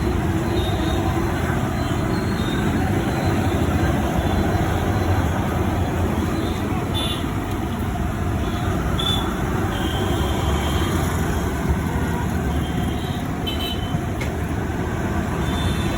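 Steady roadside traffic noise from passing vehicles, with a few brief high tones scattered through the second half.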